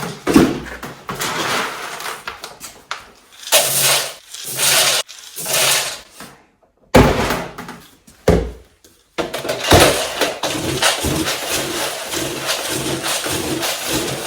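Dry Timothy feed pellets being scooped and poured into a container in several separate pours, then a steadier continuous pouring or stirring sound from about nine seconds in.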